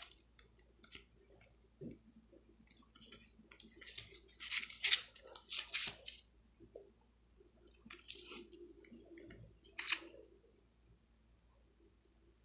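Pages of a matte paper booklet being turned by hand: several soft rustles and swishes of paper, the loudest about five and six seconds in and another near ten seconds.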